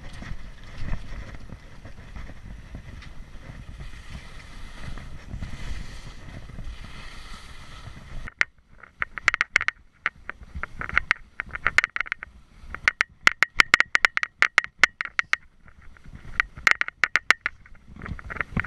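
Skis running over snow with a steady low rumble for about eight seconds; then the sound changes suddenly to clusters of quick, sharp clicks and scrapes as the skis glide along a hard, tracked glacier surface.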